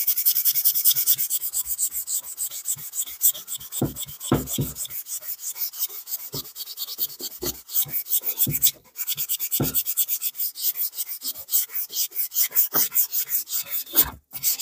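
Fine sandpaper on a sanding sponge, rubbed by hand in quick back-and-forth strokes along the porous edge of a board, smoothing it so it takes paint. The strokes pause briefly about nine seconds in, and a few soft knocks come through.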